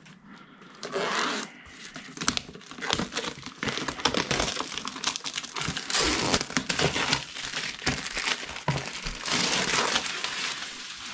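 Clear plastic shrink wrap being torn and peeled off a cardboard product box: a continuous crinkling and crackling in uneven surges, mixed with the box being handled.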